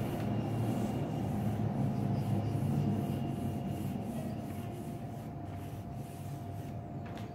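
Pencil scratching across paper in repeated short strokes, about two a second.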